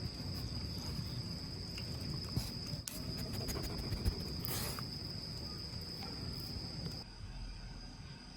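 Outdoor night ambience: a steady high insect trill over a low rushing rumble, with a few sharp clicks. The low rumble drops away abruptly near the end.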